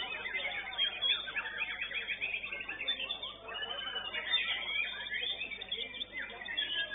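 White-rumped shama (murai batu) singing in full competition song: fast runs of quick repeated notes and trills, then whistled slides in the second half.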